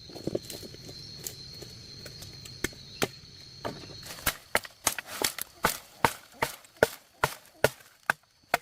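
A run of sharp, evenly spaced knocks, about two to three a second, starting about halfway through. Before that there is a thin steady high tone over a low hum.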